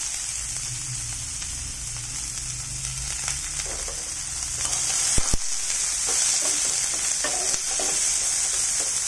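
Chopped onions sizzling in hot oil in a nonstick pan, freshly added to fried garlic and whole spices, with a steady high hiss and light scraping strokes of a wooden spatula stirring them. Two sharp knocks about five seconds in.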